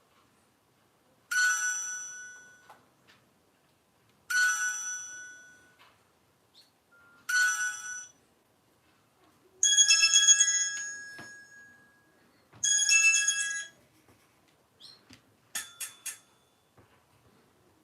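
A classic mobile phone playing a ringtone. Short, bright chiming tones, each dying away, repeat about every three seconds. Then come two longer, busier phrases of the tune a few seconds apart, and a few short beeps near the end.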